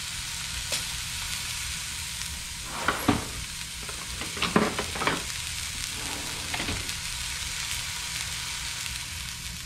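Wahoo medallions sizzling in hot oil in a cast iron skillet, a steady frying hiss. A few louder bursts come between about three and five seconds in, while more medallions go into the pan.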